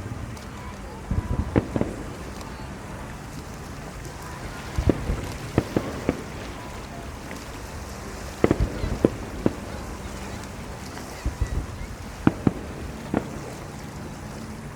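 Fireworks shells exploding at a distance: clusters of sharp bangs every few seconds over a steady background rumble.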